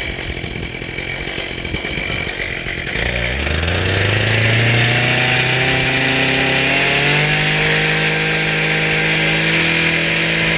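Small gas engine of a power tool running rough, then revving up about three seconds in and climbing in steps to a steady high speed.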